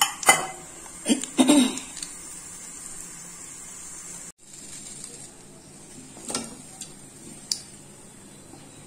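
Tempering spices (dried red chillies, chana dal, urad dal, cumin and mustard seeds) frying in a little hot oil in an iron kadai, a faint steady sizzle with occasional ticks. A few sharp knocks of utensils against the pan come in the first two seconds.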